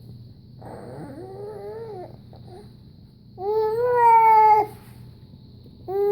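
A five-month-old baby making loud, drawn-out vocal sounds: three long pitched calls. The second one, about three and a half seconds in, is the loudest, and the last starts just before the end.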